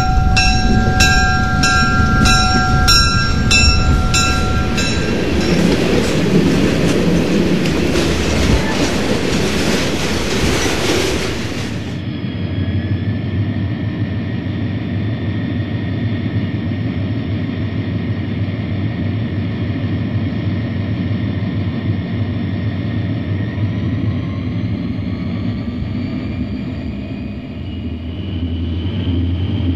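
Diesel locomotive sounds: a bell ringing about twice a second for the first few seconds, then a hiss that cuts off sharply about twelve seconds in, followed by a steady low diesel engine drone.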